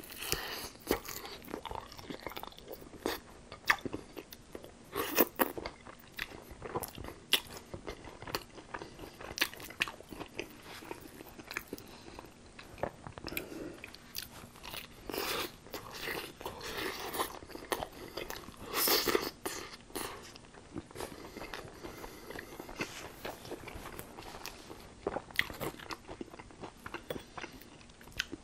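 Close-miked biting and chewing of crispy tempura-battered fried chicken wings: irregular crunches and crackles of the batter crust, with louder bites now and then.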